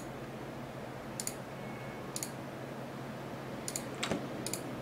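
Computer mouse and keyboard clicks: about six short, sharp clicks spaced irregularly, a few closer together near the end, over a faint steady low hum.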